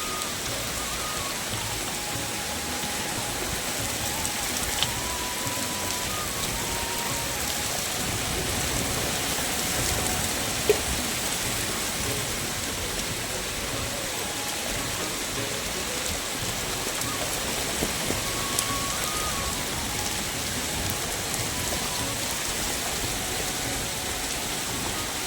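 Heavy rain falling steadily, a dense even hiss of drops, with a few sharp ticks of drops striking close by, the loudest about eleven seconds in.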